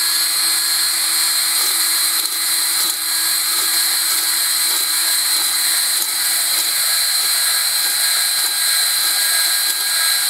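DeWalt electric drill running steadily at speed, spinning a spring-loaded cylinder hone inside the cylinder jug of an air-cooled Ideal hit-and-miss engine to clear rust from the bore. A steady motor whine with a high-pitched ring over a hiss.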